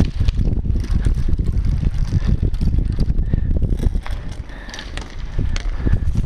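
Wind buffeting a helmet-mounted camera's microphone, a loud irregular rumble, with scattered knocks and rustling from the wearer moving.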